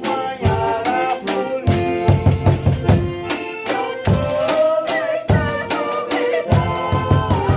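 Folia de Reis music: accordion and viola caipira playing with a drum and tambourine beating a steady rhythm, and men singing.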